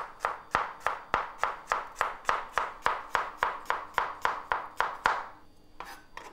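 Kitchen knife thinly slicing a garlic clove on a cutting board: quick, even taps of the blade on the board, about four a second, stopping about five seconds in.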